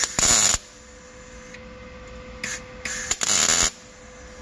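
MIG welder welding rusty sheet-metal inner fender in short stitch bursts: one at the start, a brief one about two and a half seconds in, and a longer one of nearly a second soon after.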